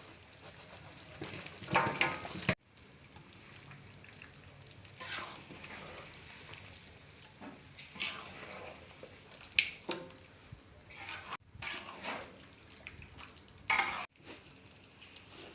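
Chicken frying in a large wok, with a metal ladle stirring and scraping the pan in repeated short bursts over the steady sizzle.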